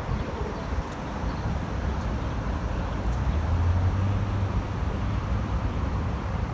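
Outdoor city ambience: a steady low rumble of distant traffic, swelling for a second or so a little past the middle.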